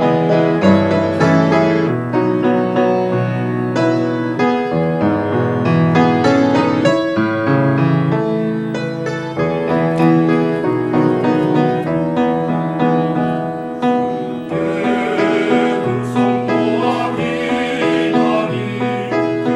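Piano playing a hymn accompaniment, with a church choir's voices coming in about fifteen seconds in.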